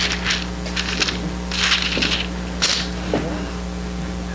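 Pages of a Bible being turned and leafed through: a few short rustles of paper, the longest a little under two seconds in.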